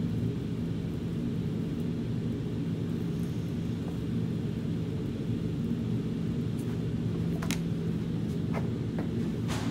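Steady low mechanical hum, with a few light knocks and taps in the last few seconds.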